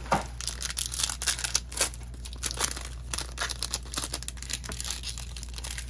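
Foil trading-card pack wrappers crinkling and tearing as packs are opened and handled, a dense run of small crackles.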